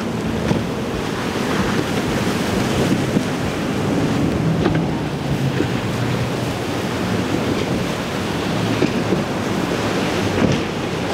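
Breaking surf and wind buffeting the microphone, with the low drone of a Yellowfin 36 center console's triple Mercury 400 Racing outboards under it as the boat runs through the waves.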